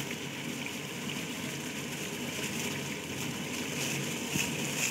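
Beef frying in oil with crushed red chilli in an open pressure cooker pot: a steady hiss over a low rumble, with one light knock near the end.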